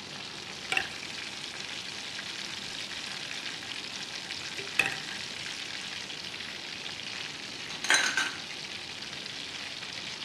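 Stuffed chicken rolls deep-frying in a wide pan of oil kept at a normal, medium-to-low temperature: a steady frying hiss. Three brief knocks, about a second in, near the middle and a quick cluster near the end, from a spatula stirring butter and chopped garlic in a small saucepan.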